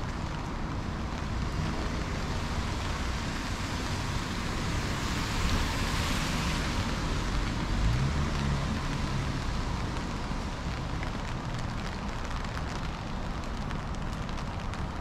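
Steady rain falling, with a car passing on the wet road: its tyre hiss swells to a peak about halfway through and then fades.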